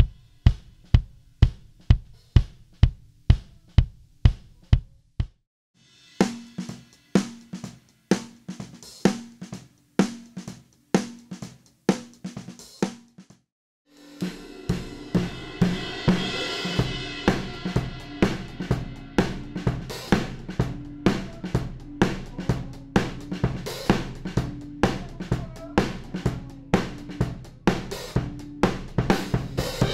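Recorded drum tracks run through a Weight Tank WT-COMP compressor. First a kick drum alone, about two or three beats a second, for roughly five seconds. Then a snare drum alone until about halfway, then the whole kit as picked up by the overhead microphones, with cymbals and hi-hat washing over the kick and snare.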